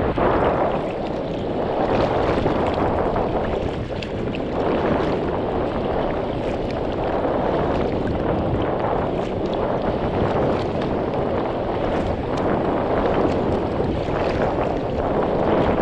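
Wind rushing over the microphone, with the paddle splashing in and water rippling along a sea kayak's hull as it is paddled into a strengthening headwind.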